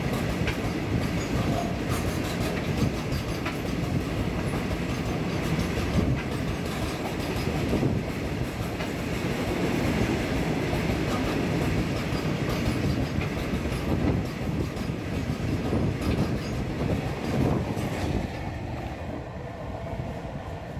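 Loaded freight train of open-top wagons rolling past at speed, the wheels clacking steadily over the rail joints. Near the end the sound fades as the last wagon and brake van pass and move away.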